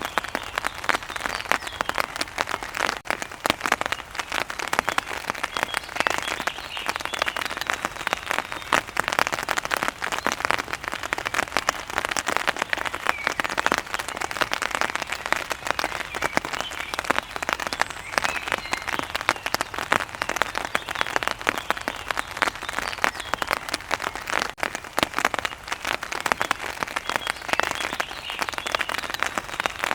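Rain pattering on an umbrella's fabric canopy: a dense, steady patter of many small drop impacts.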